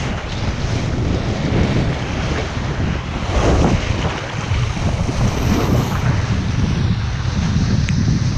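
Wind buffeting the camera's microphone over the rush and splash of water as a kiteboard planes across choppy water. A heavier burst of spray and whitewash comes about three and a half seconds in.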